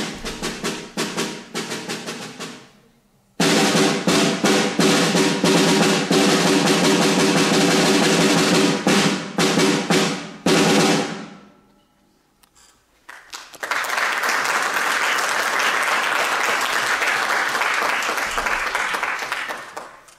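Concert snare drum played with sticks: rapid strokes and rolls, a brief pause about three seconds in, then a loud dense passage of rolls that stops about eleven seconds in. After a short silence, an audience applauds for about six seconds.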